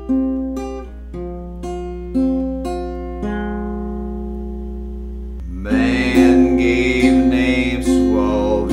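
Acoustic guitar music: single picked notes at first, then louder, fuller strummed chords from about five and a half seconds in.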